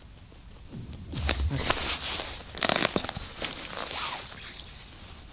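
Rustling and crinkling of winter clothing brushing against a body-worn camera's microphone, with a few sharp clicks, starting about a second in and dying away after about three and a half seconds.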